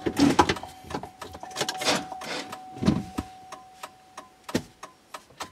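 A plastic instrument cluster being handled and set down: rustling, clunks and light clicks, with a heavier thud about three seconds in and a few sharp clicks near the end. A thin steady tone runs underneath and stops about three and a half seconds in.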